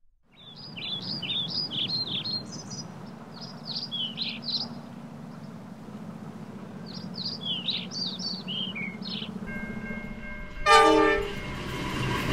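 Birds chirping over a steady low hum. About ten seconds in, a short, loud horn blast sounds, and the noise of a running train follows to the end.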